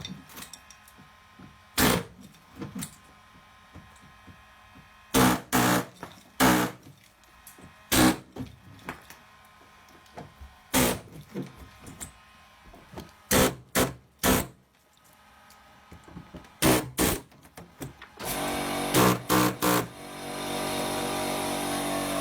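Van doors on a GAZ Sobol being shut again and again: about fifteen sharp, loud bangs with gaps between them, some with a short ringing tail. Near the end a steadier, louder noise comes in.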